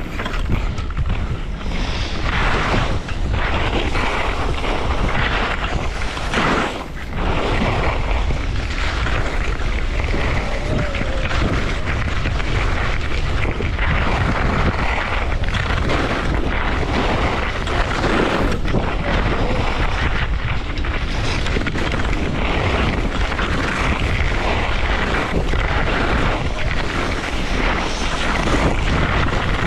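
Wind rumbling on a GoPro Hero 10's microphone during a fast downhill ski run, mixed with the hiss and scrape of Atomic Redster Q6 skis carving on fresh snow, surging and easing over and over.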